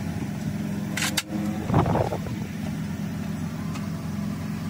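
Steady low drone of a running motor. About a second in come two sharp clicks, and shortly after there is a brief louder clatter.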